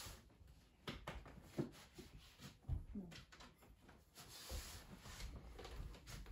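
Quiet handling noises in a small room: scattered light knocks and clicks, with a stretch of rustling about two-thirds of the way through.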